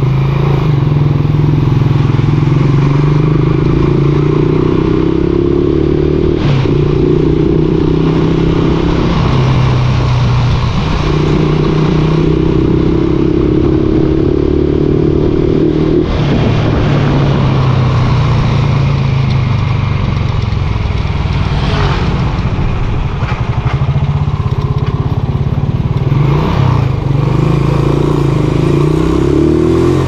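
Honda TMX 155's single-cylinder four-stroke engine running through a Takasago stock-type muffler while riding. The exhaust note rises in pitch under throttle and drops back at gear changes several times.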